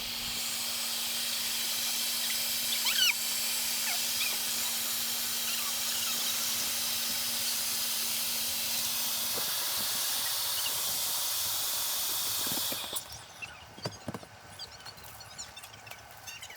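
Steady rush of air as an inflatable RV skirting tube is filled, with a faint low hum under it that fades out first. The hiss cuts off suddenly about three-quarters of the way through, leaving a few small clicks and rustles.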